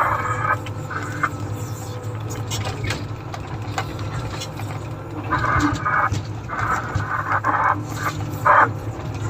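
Komatsu motor grader's diesel engine running with a steady low drone, with several short higher-pitched bursts over the second half.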